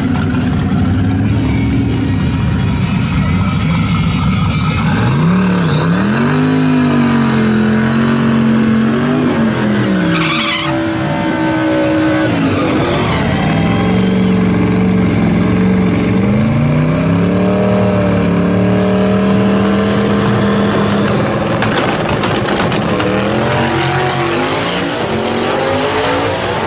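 Twin-turbo V8 of a drag-racing Corvette revving up and holding high revs for a few seconds at a time, twice, with a brief screech in between, then a hard rising run-up near the end as the car launches down the strip.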